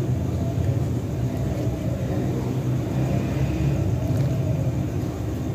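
A steady low rumble of background noise, with no distinct knocks or calls standing out.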